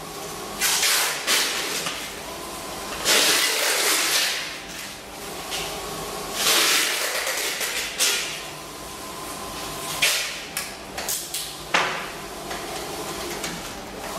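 Metal telescopic banner-stand pole and its tripod base being handled and assembled: a few rasping slides lasting about a second each, and sharp clicks and knocks, several close together near the end, over a steady faint hum.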